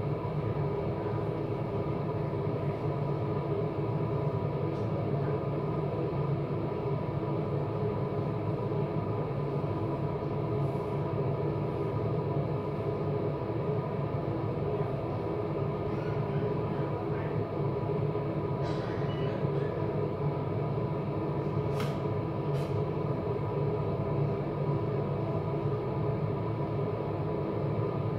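A running machine's steady hum, level throughout, with a couple of faint sharp clicks about 22 seconds in.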